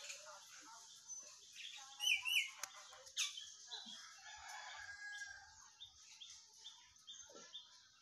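Caged rose-ringed parakeets: two short, harsh calls about two seconds in are the loudest sounds, with a faint chirp repeating about twice a second through the rest.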